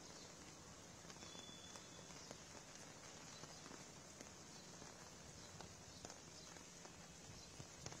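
Faint, steady rush of a river in flood, water running fast between bridge piers, dotted with scattered light ticks.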